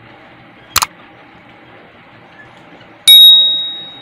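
Subscribe-button sound effect: a sharp click about a second in, then a loud bell ding near the end that rings out and fades over about a second, over faint steady background noise.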